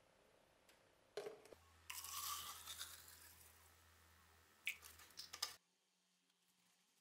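Rusty knife lowered into a plastic bottle of rust remover: a knock on the plastic about a second in, then a fizzing hiss of liquid that fades over about two seconds, then a few light clicks before the sound cuts off.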